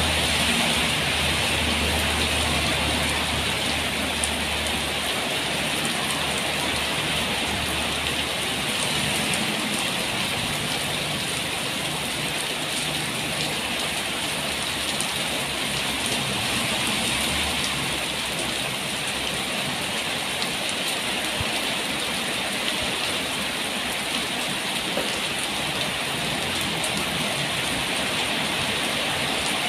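Steady rain falling, a continuous even hiss. A low hum underneath fades away over the first five seconds or so.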